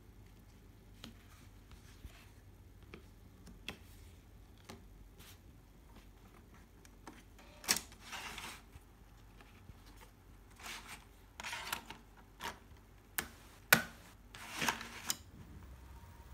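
Handling noises from loading a CD into a laptop's disc-drive tray: several sharp plastic clicks and short scraping rustles, the loudest clicks about a third of the way in and again a little past three quarters.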